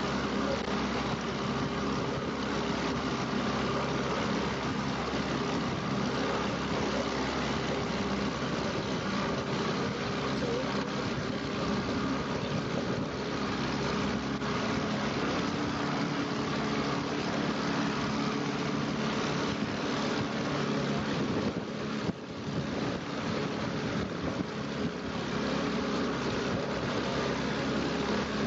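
Motorboat engine running steadily under way, with the rush of water from the wake.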